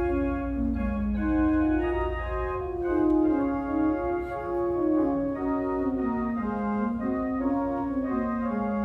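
Organ playing a slow prelude: sustained notes moving step by step up and down over a held low bass note that drops out about two and a half seconds in.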